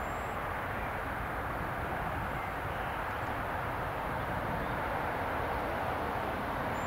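Twin Rolls-Royce AE 3007 turbofan engines of an Embraer ERJ-145 at takeoff power as the jet climbs away after lift-off: a steady rushing jet noise with a faint thin tone running through it.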